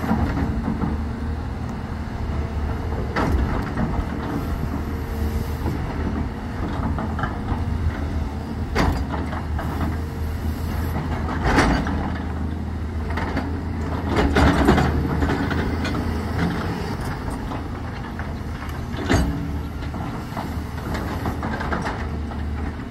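Volvo crawler excavator's diesel engine running steadily under load while its steel bucket scrapes and digs soil, with a handful of louder clanks and knocks scattered through.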